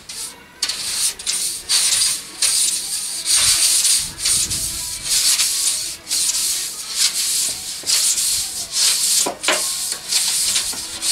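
Hand-sanding inside a large telescope tube: a sanding block rubbed back and forth in quick, uneven strokes, about one or two a second.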